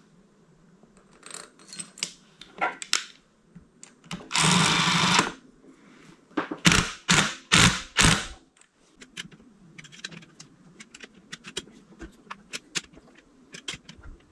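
Head bolts on a Honda TRX125 engine being tightened: a power tool runs for about a second, then a quick series of sharp clicks from the wrench, with lighter handling clicks around them.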